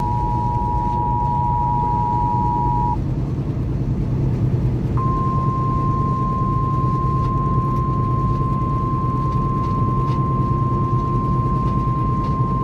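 Weather-radio emergency alert tones inside a moving semi truck's cab: a two-tone attention signal for about three seconds, then, after a short pause, a single steady higher tone held to the end. This is the alarm that precedes a broadcast severe thunderstorm warning. The truck's steady engine and road rumble runs underneath.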